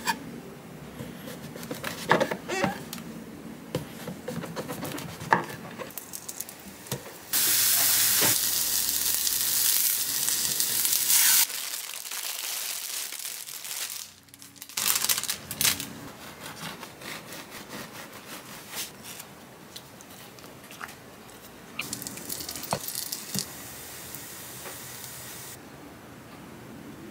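A knife slicing a mushroom on a wooden cutting board, with sharp taps and scrapes. About seven seconds in comes a loud steady hiss lasting about four seconds, then quieter handling noises.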